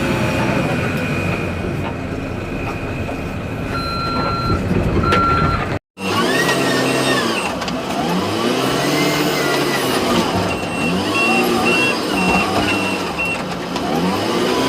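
XCMG backhoe loader's diesel engine working under load, its pitch rising and falling again and again. A pair of short beeps sounds about four seconds in, the sound drops out for an instant just before the middle, and a pulsing beep repeats for about three seconds later on.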